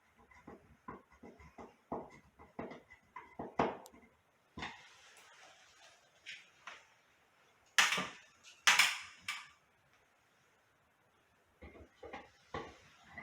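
Handling and tool noises from fitting a fire-alarm heat detector: a run of light clicks and knocks, then two louder, harsh noises about eight and nine seconds in, and a few more clicks near the end.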